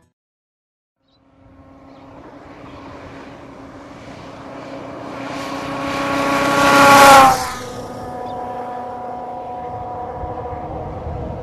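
A motorcycle approaching and passing close by. Its engine grows louder for about six seconds, peaks, then drops off sharply with a falling pitch as it goes past, leaving a steady, quieter engine sound.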